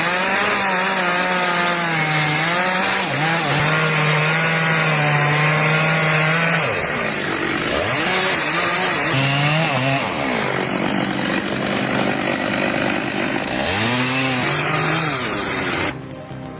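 Chainsaw running under load while cutting, its engine pitch wavering as it bogs and picks up again, dipping twice in the second half. It cuts off abruptly near the end.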